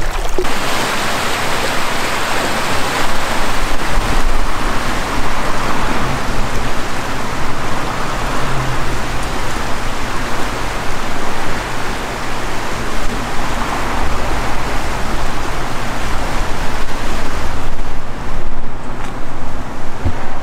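Steady rushing water of a river flowing by, a dense even hiss that thins a little near the end.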